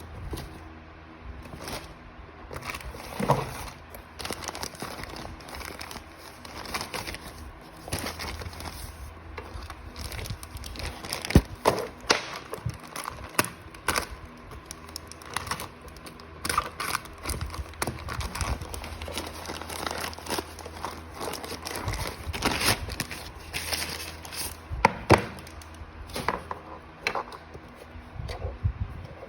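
Packaging being handled and torn open during unboxing: irregular crinkling, crackling and tearing with scattered sharper clicks, over a low steady hum.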